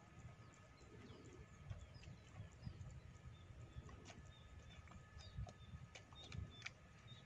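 Near silence: faint open-air ambience with scattered small bird chirps and a faint steady high tone.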